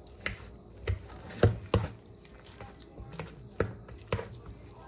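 Roasted sweet potatoes being mashed in a plastic mixing bowl with a fork and by hand: a series of irregular soft knocks and squishes, about seven or eight in all.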